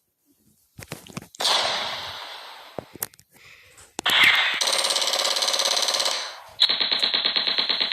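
Dubbed battle sound effects: a loud blast about a second and a half in that dies away over about two seconds, a second blast at about four seconds, then long bursts of rapid machine-gun fire.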